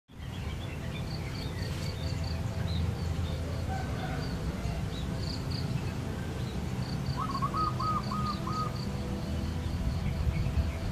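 Birds chirping outside over a steady low rumble. Runs of quick, evenly spaced high chirps come and go, with scattered smaller chirps, and a short series of lower clipped notes about seven seconds in.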